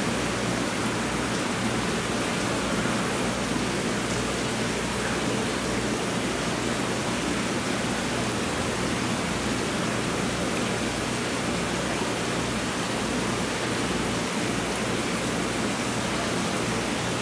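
Steady rushing water noise of an aquarium tank's circulation and aeration, with a low steady hum underneath.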